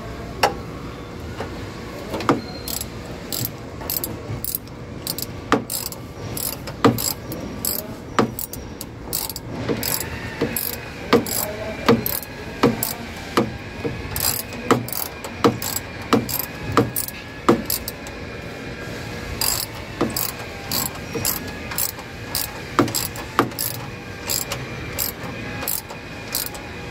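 Hand ratchet with an 11 mm socket clicking in short, uneven strokes as the valve cover bolts on a Chrysler 225 slant-six are snugged down by hand, not yet torqued.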